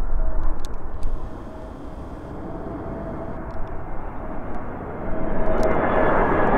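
Airbus A321neo jet on approach, its CFM LEAP-1A turbofans giving a steady rumble with a faint whine, growing clearly louder about five seconds in.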